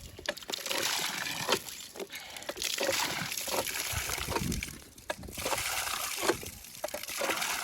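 Water splashing and sloshing: a steady rush broken by many irregular splashes.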